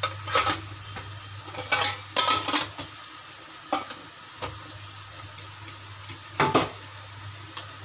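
Whole spices and a bay leaf frying gently in hot oil in an aluminium kadai, with a few short clinks and knocks of metal on the pan. The knocks are loudest around two seconds in and again near six and a half seconds.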